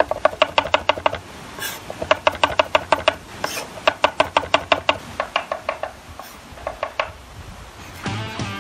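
Chef's knife rapidly mincing garlic on a wooden cutting board: quick taps of the blade on the board, about eight a second, in several runs with short pauses. Music comes in near the end.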